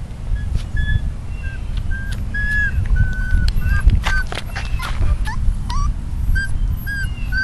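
Three-week-old Akita puppies whimpering and crying in a run of short, high-pitched squeaks, about two a second, over a steady low rumble.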